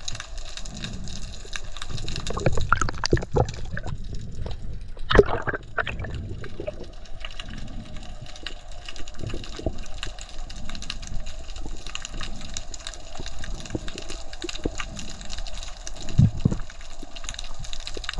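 Underwater ambience picked up by a submerged camera: a dull wash of water noise that swells and fades, with scattered faint clicks and a few knocks, the sharpest about five seconds in.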